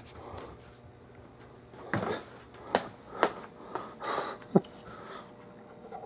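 Breathing and sniffing close to the microphone, with about four sharp clicks and knocks from handling the plastic turn signal switch parts on the wooden bench.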